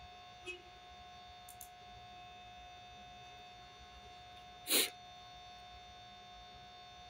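Faint steady electrical hum with a few fixed whining tones, broken by a small click about half a second in and one short, louder burst of noise near five seconds.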